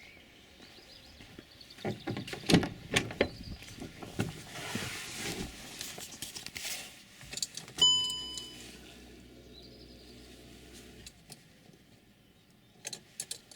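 Car keys jangling and clicking in a car, then a short electronic chime about eight seconds in, followed by a faint low steady hum for about three seconds and a few more clicks near the end.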